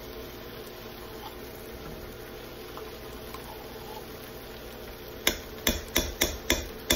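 Food sizzling steadily in a Ninja multicooker pot on sear/sauté, then, over the last two seconds, a quick run of about six loud, sharp knocks against the pot, as tomato paste is knocked out of its can.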